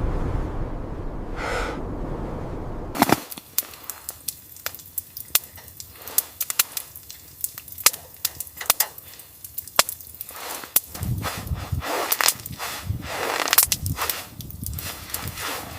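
Wind rumbling for about three seconds, then it cuts off and gives way to sharp, irregular crackling and popping of burning firewood in a tent stove, with a few soft thuds and rustles in the last few seconds.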